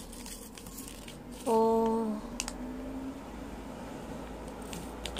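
Faint clicks and handling noise of small plastic toy water-pistol parts being picked up and moved, with a short steady hummed "hmm" from a person about one and a half seconds in.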